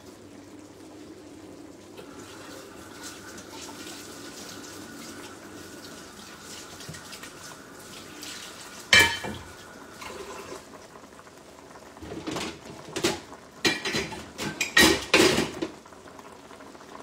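Kitchenware clattering: one sharp clang about nine seconds in, then a run of knocks and clinks a few seconds later. Pots simmer steadily on the stove underneath.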